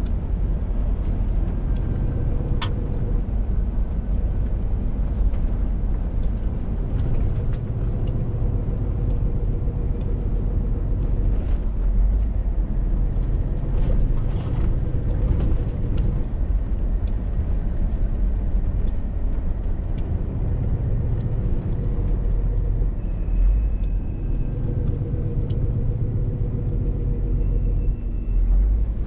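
Scania R450 lorry's 13-litre straight-six diesel pulling steadily on the road, with road rumble, heard from the cab; the engine note rises and falls a little with load. Light rattles and clicks come now and then.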